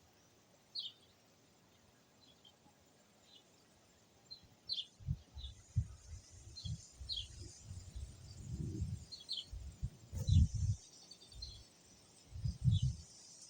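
Small birds chirping in short, repeated high calls over a faint outdoor background. From about five seconds in, irregular low rumbles and thumps come and go, the loudest near the ten-second mark.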